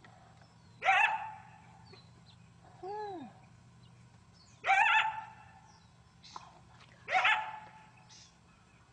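Coyote giving three loud barks about three seconds apart, each starting sharply and trailing off in a wavering tail. A softer, rising-and-falling call comes between the first two. These are warning barks aimed at a mountain lion.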